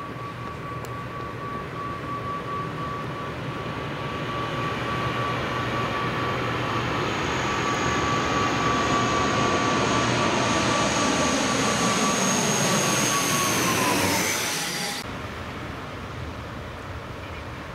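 ATR twin-turboprop airliner flying low overhead on approach with gear down: a steady propeller whine over engine noise grows louder, then drops in pitch as it passes over about fourteen seconds in. A second later the sound cuts off abruptly to a quieter, steady noise.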